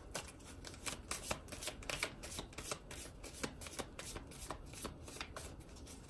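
A deck of playing cards being shuffled and handled by hand: a run of quick, uneven card flicks and snaps, several a second.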